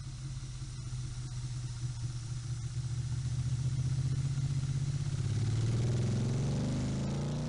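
An engine running steadily, then climbing in pitch and getting louder as it revs up over the last few seconds.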